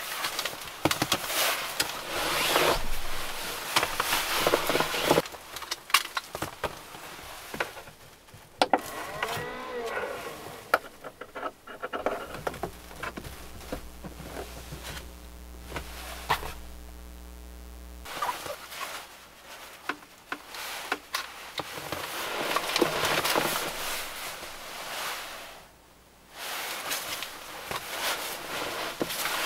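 Rustling and crinkling of a fleece electric blanket and its power cord being unpacked and handled. A steady low hum runs for about six seconds in the middle.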